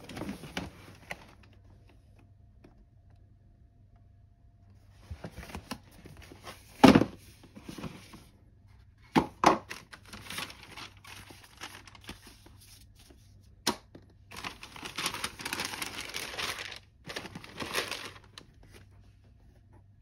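A cardboard shoebox being opened and its tissue paper unwrapped: knocks and scrapes of the lid, the loudest a single thump about seven seconds in, then crinkling and rustling of tissue paper, densest in the last few seconds.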